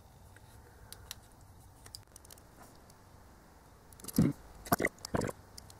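Plastic casing of a small digital voice recorder being handled and pried at during disassembly: faint clicks, then about four seconds in a few short, louder knocks and scrapes.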